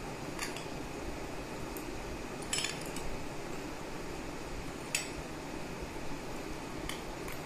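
A metal spoon clinking sharply against glass, three times, as powdered sugar is scooped from a glass bowl and spooned into tumblers of orange drink, over a steady background hiss.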